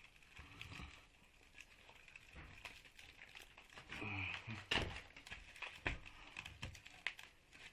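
Scattered light knocks and clicks of metal parts being handled and worked on a washing-machine electric motor, with a few sharper knocks in the second half and a brief low grunt or mutter about four seconds in.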